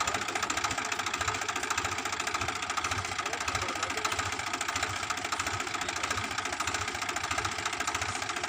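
S S Mann combine harvester running steadily, its engine and machinery giving a fast, even pulsing.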